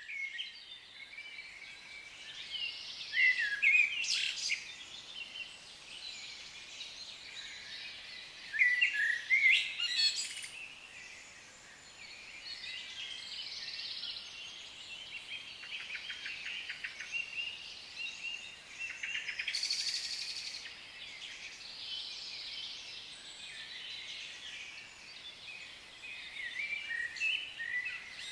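A forest chorus of many birds calling and chirping, with louder bursts of calls about four seconds in and again around nine to ten seconds in, and a fast rattling trill near the middle.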